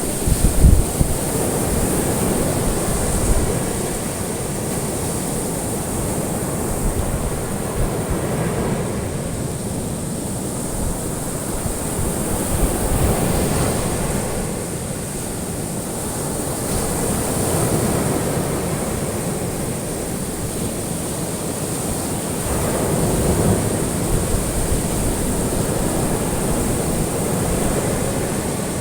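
Ocean waves washing onto a shore: a continuous surf sound that swells and recedes every few seconds.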